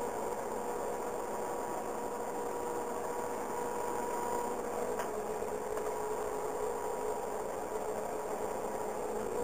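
BOMAG BW 213 DH padfoot roller's diesel engine running steadily, heard from inside the cab, with a steady whine over the drone as the roller drives over the compacted sand.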